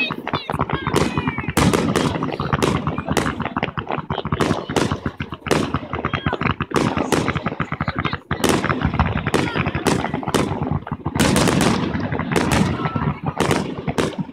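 Fireworks display: aerial shells bursting in quick succession, a dense run of sharp bangs and crackling, with a brief lull about eight seconds in.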